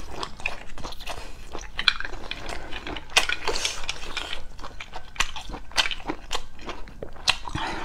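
Close-miked chewing of braised abalone, with wet mouth sounds and many sharp clicks and taps as the abalone shells are handled on the plate.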